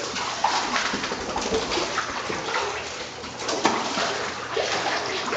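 Water splashing and sloshing in a small indoor dog pool as a dog paddles through it, with repeated short splashes over a steady wash of moving water.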